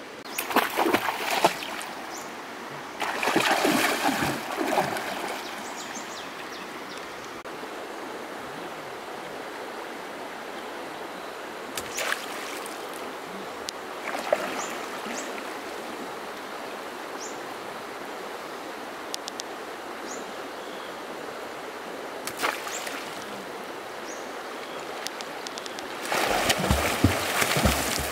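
River water running steadily, with bursts of splashing early on and a few sharp clicks. Near the end, the water splashes hard and keeps churning for several seconds.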